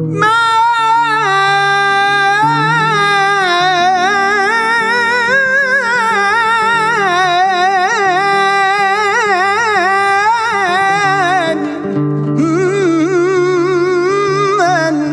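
Male voice singing a long, drawn-out melismatic devotional phrase with strong vibrato, over plucked-string accompaniment; the line breaks off briefly about twelve seconds in and a second held phrase follows.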